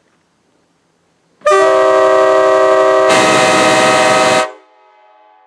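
Multi-chime locomotive air horn sounding one loud chord of several steady tones for about three seconds, starting about a second and a half in. It turns harsher and noisier halfway through, then cuts off, leaving a much fainter chord that carries on.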